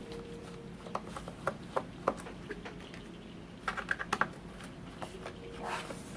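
Small sharp clicks and taps of a screwdriver working the tiny screws out of a MacBook Pro's bottom case, with a quick cluster of clicks about four seconds in.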